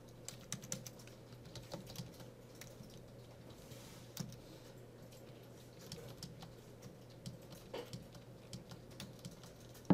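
Computer keyboard being typed on: scattered, irregular keystrokes with short pauses between bursts, fairly faint.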